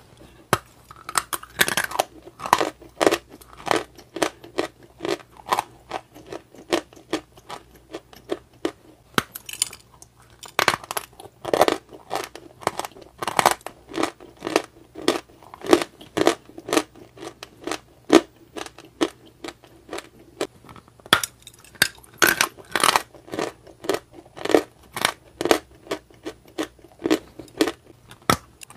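Close-up chewing and crunching of mouthfuls of a crumbly white block: a steady run of crisp chews, about two to three a second, with a few louder bites.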